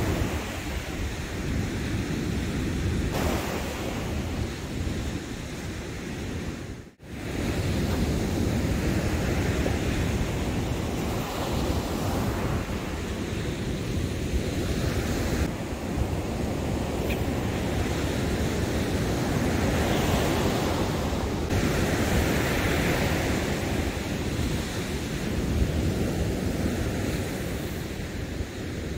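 Ocean surf breaking and washing up a sandy beach, with wind buffeting the microphone: a steady rushing noise that cuts out briefly about seven seconds in.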